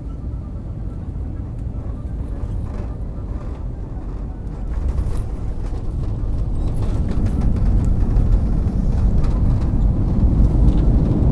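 Vehicle running, a steady low rumble that grows louder over the second half.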